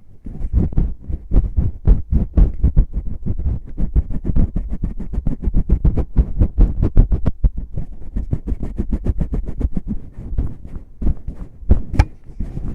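Fingers rubbing and tapping in and around the ear of an ASMR microphone: a rapid, dense run of soft, bassy thumps and scratches, several a second, with one sharper click near the end.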